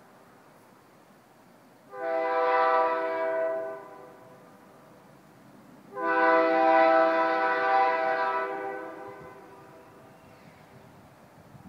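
Air horn of a CN GP38-2 diesel locomotive sounding two blasts, a chord of several tones: the first about two seconds long, the second longer and trailing away. It is the warning horn for the level crossing ahead.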